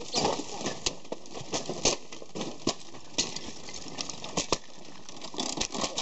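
Irregular sharp clicks and knocks from wooden bird cages being handled and moved about on the ground.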